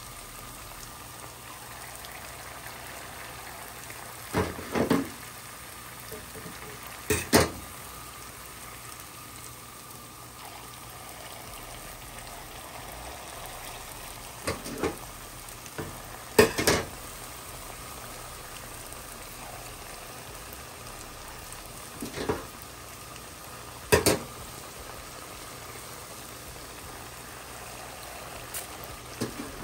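Churros frying in deep hot oil, a steady sizzle throughout. About nine sharp clicks cut through it, some in quick pairs, spaced a few seconds apart.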